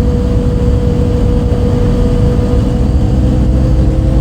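A MAN D0836 LOH 63 diesel engine of a MAN Lion's City A37 city bus, heard from inside the bus, running at steady revs under way. It gives a low rumble with a held whine above it. This is the engine sound the owner calls unusually weird for a MAN on that day.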